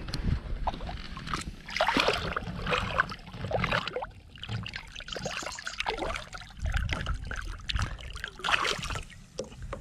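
Water splashing and sloshing as a largemouth bass, held by the lower jaw at the surface, kicks in the water while it is being released.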